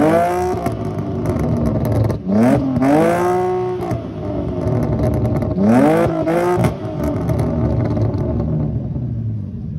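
Cadillac CTS engine and exhaust revved at a standstill. A rev is held at the start, then two more sharp revs come about two and six seconds in, each climbing, holding briefly and dropping back to a steady idle.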